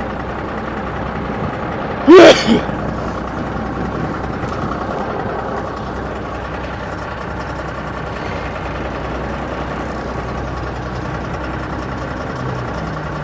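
Engine of an old heavy tow truck idling steadily after sitting abandoned for years, running with good oil pressure. About two seconds in there is one short, loud burst.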